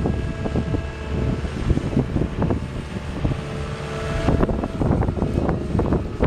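Cat skid steer's diesel engine running under load, with a whine that comes and goes and many clanks and knocks.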